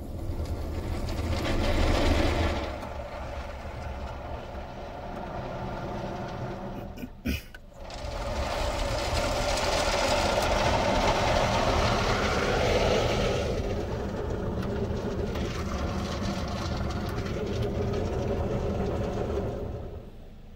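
D&S IQ soft-touch car wash gantry working over the car, heard from inside the cabin: cloth brushes rubbing across the body and water spraying on the glass, with the machine's motors running underneath. The noise swells about two seconds in and again from about eight to thirteen seconds, with a brief break about seven seconds in.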